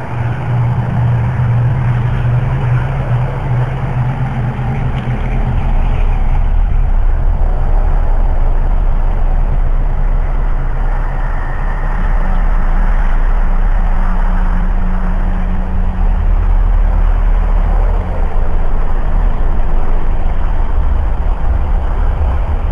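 Continuous low rumble with a droning hum, of no clear source, heard as coming from all around. It deepens and grows louder about five seconds in. The recording is cellphone audio boosted with a compressor/limiter.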